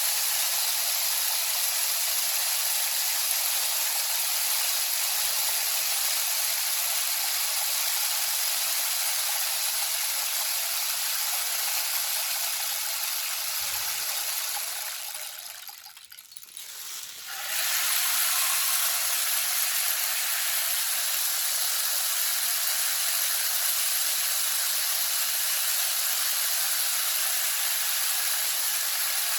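Rainstick pouring: a steady, rushing patter of falling pellets. About halfway through it dies away briefly as the fill runs out, then starts again at full strength when the stick is turned over.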